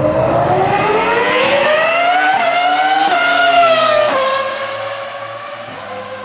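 Rally car engine accelerating hard, its note rising through a gear change, then dropping sharply about four seconds in as the driver lifts off, and running on at a quieter, steady lower note.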